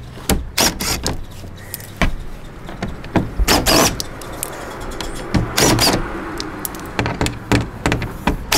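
Cordless power driver spinning in several short bursts on the skid-plate screws under the car, the longest about half a second, with clicks and knocks between them and a low steady hum underneath.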